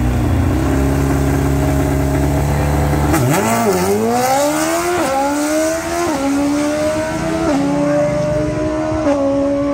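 Drag-racing motorcycle engine held at a steady rev, then about three seconds in it launches and pulls hard through the gears. The pitch climbs and drops back at each of about four shifts.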